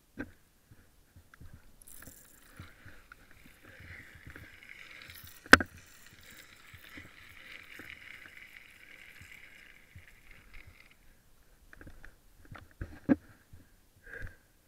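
Zipwire trolley pulley running along the cable: a steady whirring hiss from about two seconds in until about eleven, with one sharp clack about five and a half seconds in and a few short knocks near the end.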